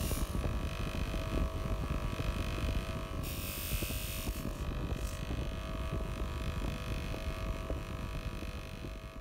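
A bench-mounted motor-driven wheel runs steadily with a low rumble and a faint steady hum. Small steel parts, a rod and a coil spring, are held against it for cleaning. About three seconds in, a brighter hiss lasts about a second as a part is pressed onto the wheel, and there is a shorter one about five seconds in.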